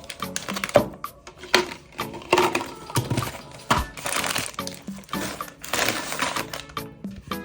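Background music over handling noises from unboxing a Barbie Pop Reveal toy: irregular crinkling and cracking of plastic packaging, several short bursts a second.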